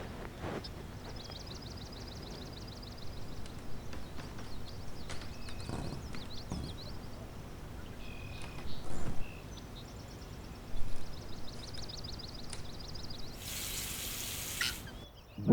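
Outdoor ambience with small birds singing: a rapid trill of repeated high notes about a second in and again near the end, with scattered chirps, over a steady low rumble. A couple of knocks stand out midway, and a short burst of hiss comes just before the end.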